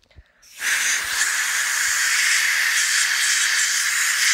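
Compressed-air blow gun starting about half a second in and then hissing steadily as it blows a jet of air into an open mouth.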